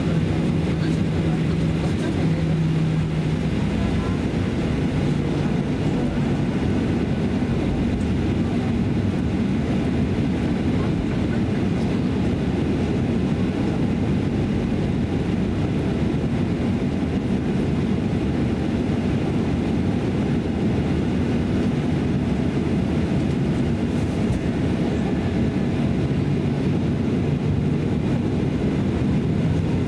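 Steady cabin noise of a Boeing 737-800 during takeoff: a loud, even rumble of its CFM56 turbofan engines and airflow, with a low hum whose pitch shifts slightly.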